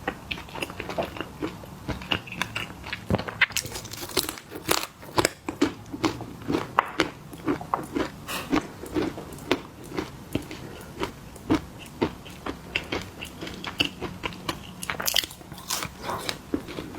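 Close-miked crunching and chewing of crunchy snacks: a steady, irregular run of sharp bites and crunches, a few a second.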